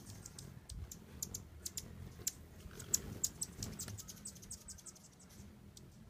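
Hummingbirds chipping at a feeder: a quick run of sharp, high, dry ticks, thick for the first few seconds and thinning out toward the end.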